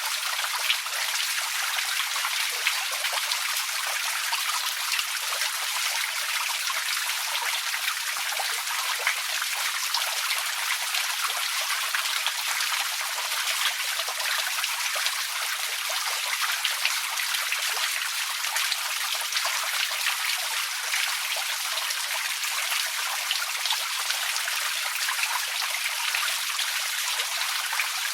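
Outdoor water fountain splashing steadily: a dense, even hiss and patter of falling water made of many small drops, with no change in its flow.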